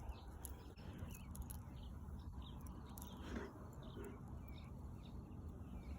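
Quiet background with scattered faint, short high-pitched bird chirps.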